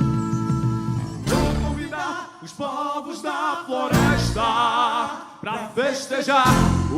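Live boi-bumbá toada: a held instrumental chord for about the first two seconds, then a male voice singing a wavering, ornamented line, with two deep thumps about four and six and a half seconds in.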